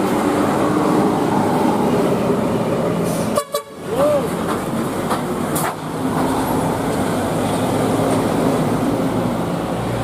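Bus musical air horns (telolet/basuri) sounding held, melodic tones over the noise of passing buses, with a brief break about three and a half seconds in.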